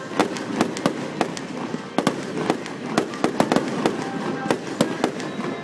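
Aerial fireworks going off in quick succession: a rapid, irregular string of sharp bangs, several a second.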